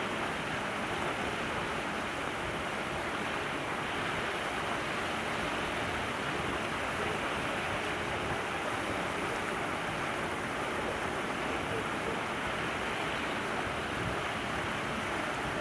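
Steady rushing background noise, even and unbroken, with no distinct calls or knocks standing out.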